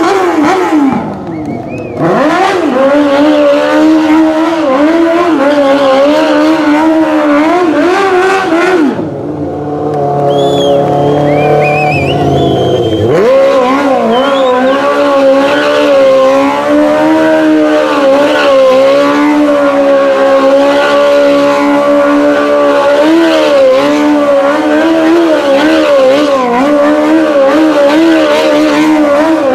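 Sport quad's engine held at high revs with the pitch wavering up and down as it is spun in circles on asphalt. The revs dip briefly about a second in, fall to a lower steady run for about four seconds near the middle, then climb back up and stay high.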